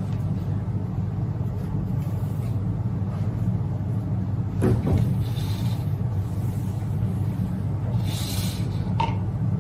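Steady low hum of room background noise, with a couple of brief soft rustles about five and eight seconds in.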